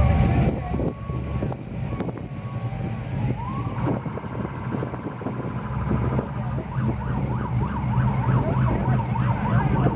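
An emergency vehicle siren wails up about three and a half seconds in and holds, then switches to a fast up-and-down yelp for the last few seconds. Under it is a low steady rumble of slow-moving car engines.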